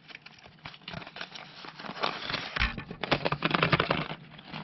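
Packaging being opened and handled, a run of crinkling and crackling rustles that grows busier about two seconds in and again about three seconds in.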